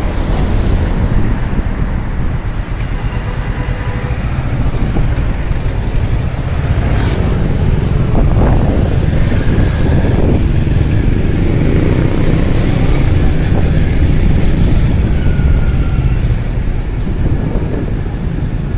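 Kawasaki Ninja 650's parallel-twin engine running while ridden, heard through a handheld phone as a loud, steady low rumble of engine, wind and road noise, with traffic around.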